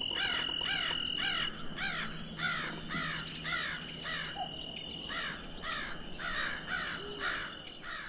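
A bird calling over and over, about two calls a second, each call rising and falling in pitch, with a thin steady high tone underneath.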